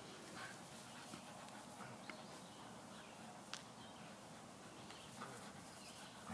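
Near silence: faint outdoor hiss with a few soft, sharp clicks spread through it.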